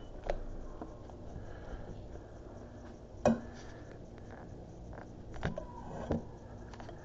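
Kitchen utensils and a frying pan being handled: four knocks and clatters, the loudest a sharp knock about three seconds in, over a low steady background hum.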